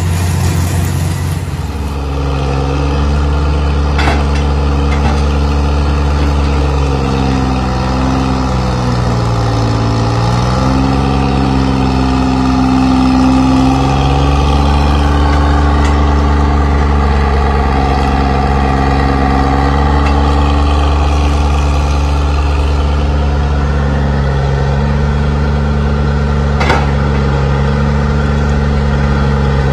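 Vintage Lima cable-operated power shovel's engine running steadily as the shovel digs sand. The engine pitch sags and recovers for a few seconds near the middle, and there are two sharp knocks, one early and one near the end.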